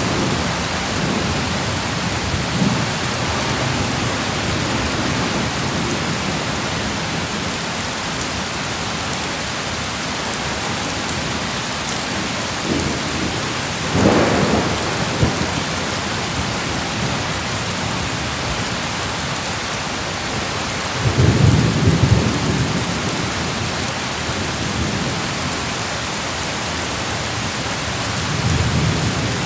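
Steady heavy rain hissing, with rolls of thunder rumbling over it: a sharp crack-and-roll about halfway through, a longer low rumble a few seconds later, and a softer one near the end.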